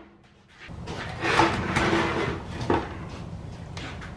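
Parts and tools being handled on a workbench: rustling and scraping that starts about half a second in, with a sharp knock a little before the end, then a steady low hum from the shop.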